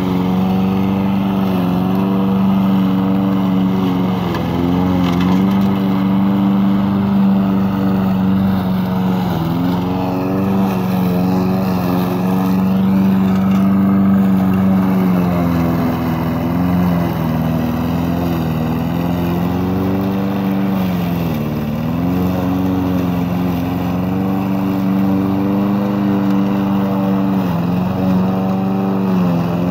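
Walk-behind petrol lawn mower engine running steadily while cutting tall, thick grass. Its engine speed sags briefly several times as the mower pushes into heavy growth, then picks back up.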